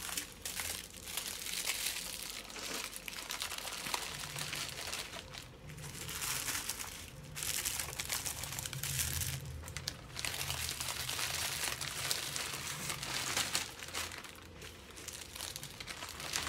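Small plastic packets of diamond painting drills crinkling as they are handled and gathered into a Ziploc bag, in stretches broken by brief pauses.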